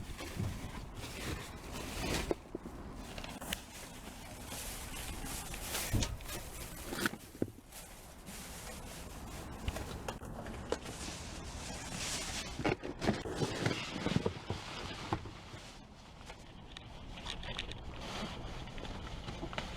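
Rummaging through discarded boxes and bags in a dumpster: irregular scrapes, rustles and knocks, with footsteps.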